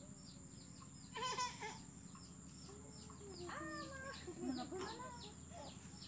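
Chickens clucking and calling in short bursts, about a second in and again in the middle, over rapid high chirping and a steady high whine.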